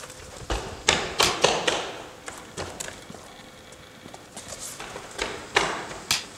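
Footsteps on stone paving: a quick run of steps and scuffs about a second in, a few lighter ones in the middle, and another cluster near the end.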